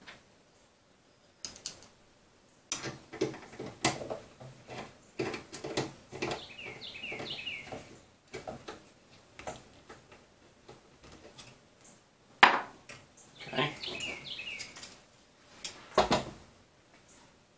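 Clicks, knocks and clatter of small metal parts and tools being handled during 3D-printer assembly, with a bird chirping in quick runs twice in the background.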